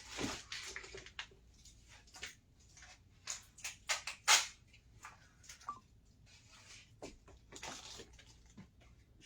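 Scattered small kitchen handling noises: clicks, knocks and rustling as things are picked up and set down, with a quick run of clicks about three to four seconds in and the loudest knock just after.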